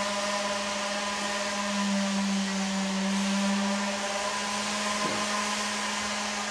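Steady hum of a running machine: a constant low drone over an even hiss, with a faint knock about five seconds in.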